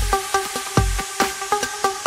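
Electronic dance music: a deep kick drum under a short, repeating synth riff.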